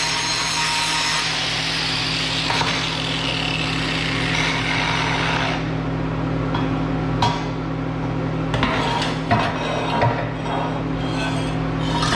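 Steady harsh rasping of a metal piece being worked on a scrap-steel sculpture, which stops about five and a half seconds in. Scattered light clanks and knocks of steel pieces being handled follow, over a steady low hum.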